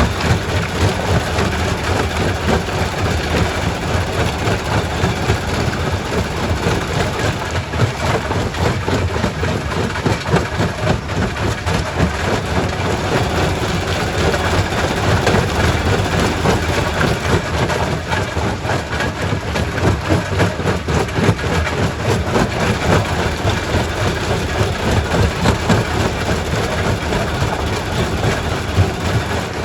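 Quarry primary rock crusher running: a steady, heavy machine drone with continual knocking and clattering of stone being broken.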